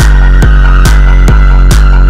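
Heavily distorted techno played live on a Korg Electribe 2 and Novation Circuit through Ableton Live: a steady four-on-the-floor kick at about 140 beats a minute over a thick distorted bass drone, with a steady high tone held above it.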